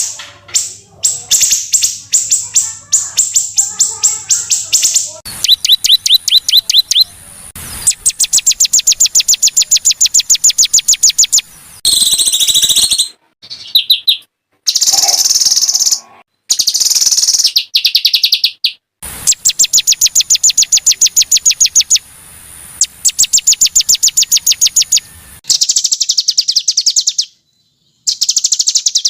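Songs of several small songbirds spliced into one training track. Rapid volleys of sharp, high repeated notes (the harsh 'tembakan' bursts) come in blocks of one to a few seconds, each starting and stopping abruptly, with brief gaps between them.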